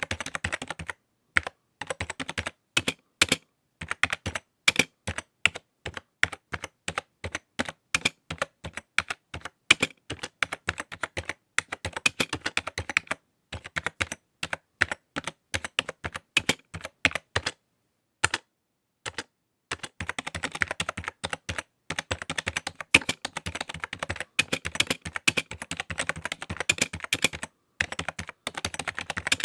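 Typing on a computer keyboard. Slow, separate key presses come a few per second for about the first half, then after a short pause the typing turns fast and dense, with brief breaks.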